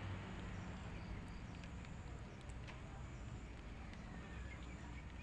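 Quiet outdoor ambience: a steady low rumble with scattered faint clicks and a few faint, short bird chirps.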